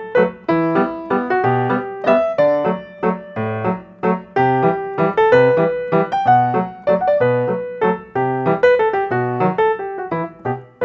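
Solo piano playing, with chords over a bass line struck in an even rhythm, each note ringing and decaying.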